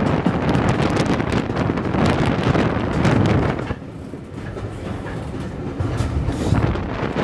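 Wind rushing over the microphone from a moving train's open carriage window, with the train's running noise underneath. About halfway through it drops and turns muffled for a couple of seconds, then the rush comes back.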